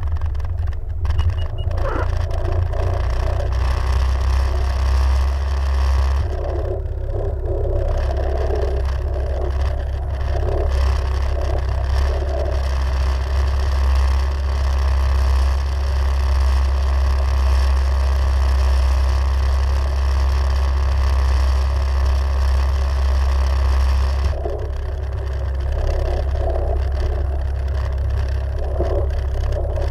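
Jet ski engine running steadily under way, easing slightly about 24 seconds in.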